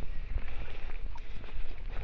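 Wind buffeting the microphone: an uneven low rumble, with faint rustle and walking noise along a path.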